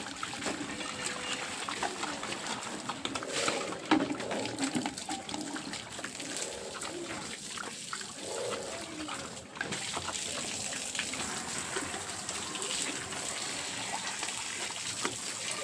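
Water running and splashing steadily, with a sharp knock about four seconds in.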